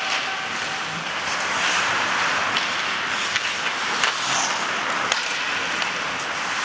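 Ice hockey play on a rink: a steady hiss of skates on the ice, broken by a handful of sharp clacks of sticks and puck.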